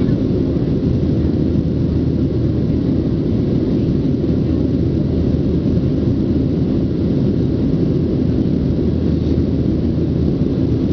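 Steady low drone inside the cabin of a Boeing 737-700 in flight: the CFM56-7B turbofan engines and the rush of air over the fuselage, even and unchanging.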